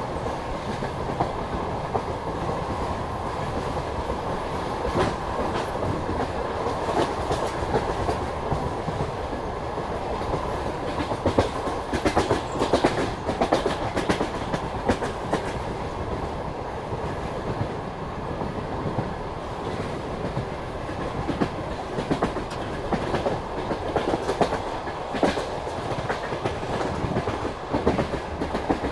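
Passenger train wheels clattering over rail joints, a continuous rolling rumble with irregular sharp clacks that bunch together about halfway through and again near the end.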